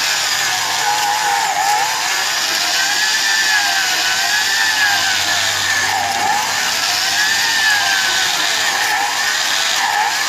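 Electric drill driving a cylinder hone in a tractor engine block's bore, running steadily under load. Its pitch rises and falls in a slow, regular wave.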